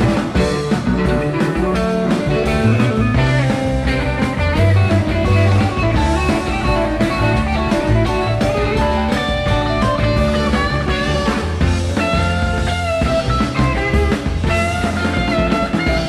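Live psychedelic rock band playing an instrumental passage: electric guitars, bass and drum kit, with a lead guitar line bending in pitch in the second half.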